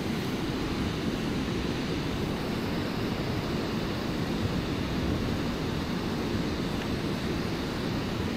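Steady rush of water pouring out of a dam spillway into the pool below.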